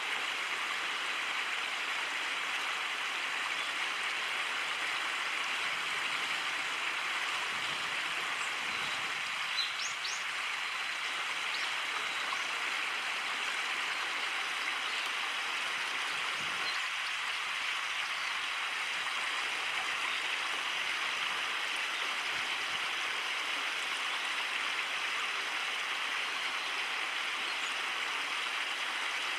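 Flowing stream water rushing steadily, with a faint tick and a few short high notes about ten seconds in.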